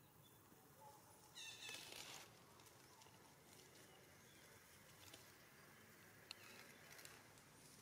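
Near-silent outdoor quiet broken by one short, high-pitched animal call about a second and a half in, and a single faint click a little after the middle.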